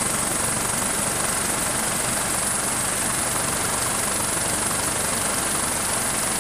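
US Coast Guard MH-65 Dolphin helicopter in flight, heard from aboard: a steady, unbroken rush of rotor and twin turboshaft engine noise with a constant high whine over it.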